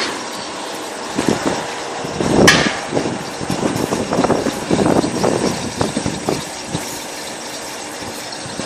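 KQM-1 cable stripping machine running with a steady motor hum, with irregular clattering and knocks as the cable feeds through it; the sharpest knock comes about two and a half seconds in.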